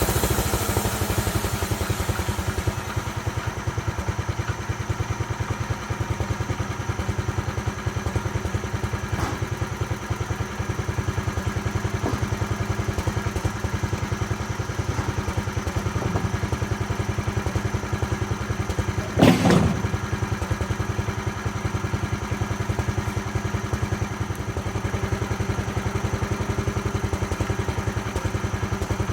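Homemade sawmill's engine running steadily at idle, just after a louder stretch dies away and drops in pitch at the start. About two-thirds of the way through there is one sharp knock.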